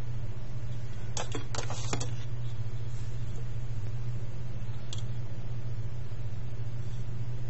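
Steady low hum, with a quick cluster of clicks and taps about a second in and one more near five seconds, as a metal ruler is handled and laid down on the paper.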